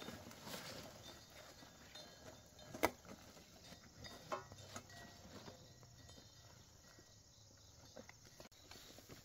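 Faint rustling and crackling of large leaves and vegetable stems being handled and bundled by hand, with a sharp knock about three seconds in.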